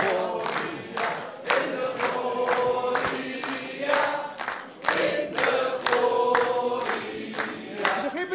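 A roomful of people singing a birthday song together, unaccompanied, with claps in time about twice a second.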